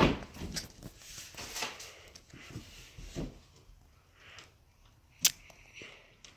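A shiplap board being handled and pressed into place against the wall for a test fit: scattered light knocks and taps, the loudest right at the start and a sharp click about five seconds in.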